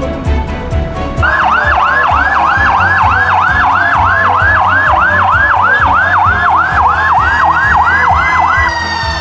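Emergency vehicle siren in a fast yelp, about three sweeps a second, starting about a second in; near the end it gives way to a slower rising wail.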